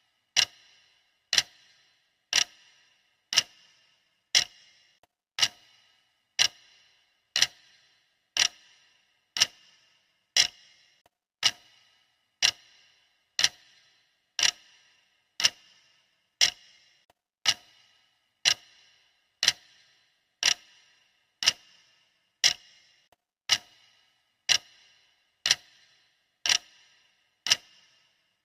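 Clock ticking steadily, one sharp tick a second, each tick with a brief ringing tail.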